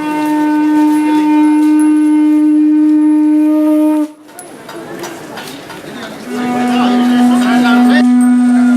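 Conch shell (shankha) blown in two long, steady blasts. The first lasts about four seconds and stops abruptly; the second, slightly lower in pitch, starts about six seconds in.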